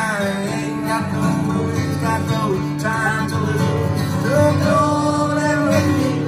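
Acoustic guitar played with a man singing over it.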